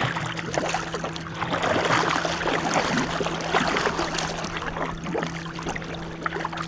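Water splashing and trickling against a war canoe as the crew paddle, with many small splashes that are busiest in the first half and ease off near the end.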